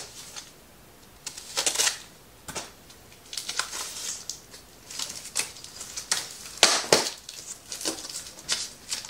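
Cardboard packaging being handled and opened: intermittent rustling and scraping, with a few sharper knocks, the loudest about two-thirds of the way through.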